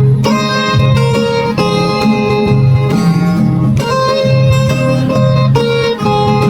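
Background music led by plucked acoustic guitar, with a steady bass line and quick changing notes.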